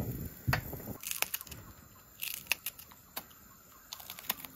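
Kitchen scissors snipping chili peppers: a few separate sharp clicks, with a short crinkling rustle about two seconds in.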